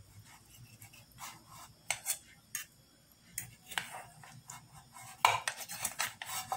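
Metal spatula scraping and tapping against a frying pan as a cooked pizza is slid out onto a plate: scattered light clicks and scrapes, busier and louder near the end.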